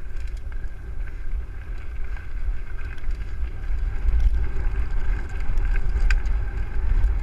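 Mountain bike descending a dirt and gravel trail at speed: a steady rumble of wind buffeting the microphone and tyres rolling over the ground, with a few light clicks and rattles from the bike.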